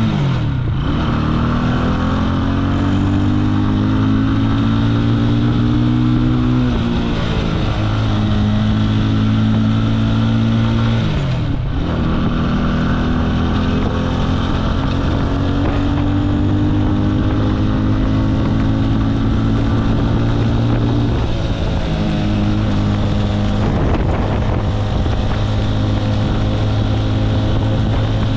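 Jialing 150 cc motorcycle engine running under way. Its note climbs and then drops back about five times, as at gear changes, with wind noise on the microphone.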